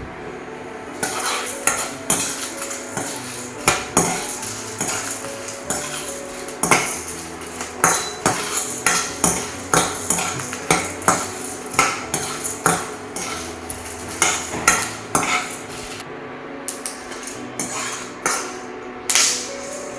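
A spatula stirring whole spices dry-roasting in a pan, with repeated clinks and scrapes against the pan about once or twice a second and a short lull near the end.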